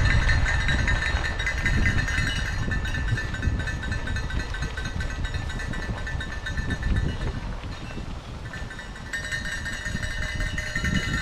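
Mountain bike riding noise with wind on the microphone, under a continuous high rattling ring that fades about seven seconds in and comes back about nine seconds in.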